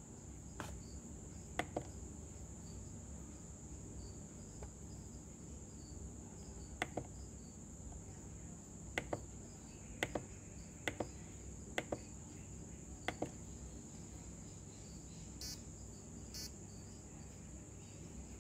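Sharp plastic clicks, some in quick pairs, as the buttons of a handheld radio transmitter are pressed to step through its menu, followed by two short buzzy beeps. A faint steady high-pitched whine and a low hum run underneath.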